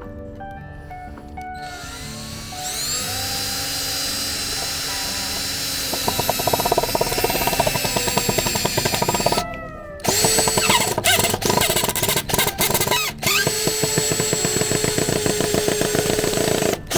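Cordless drill driving a screw into wood: the motor whines up to speed and runs with a fast ticking rattle, stops about halfway through, then is triggered in several short bursts before running steadily again.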